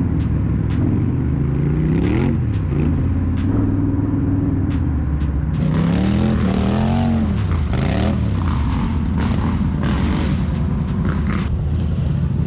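ATV engine running in a mud pit, its pitch rising and falling as the throttle is worked, twice. A loud rushing noise joins it about halfway through.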